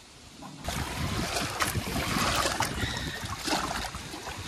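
Water sloshing and splashing at the lake's edge as a common carp is lowered back in for release. It starts suddenly after a short quiet moment and fades somewhat near the end.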